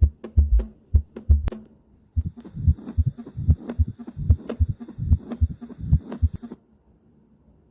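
Recorded heart sounds: repeated low thumps of the heartbeat, many in lub-dub pairs. After a short break about two seconds in, a second recording with a steady hiss behind the beats plays and cuts off near the end.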